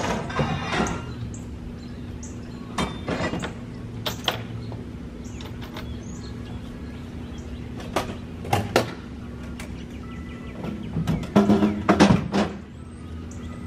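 Scattered knocks and clanks, a few at a time, loudest in a cluster near the end, over a steady low hum.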